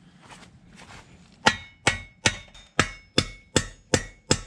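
A brass hammer striking the steel pin of a concrete anchor, setting it. About eight sharp blows come at a steady pace of two to three a second, starting about a second and a half in, each with a short metallic ring.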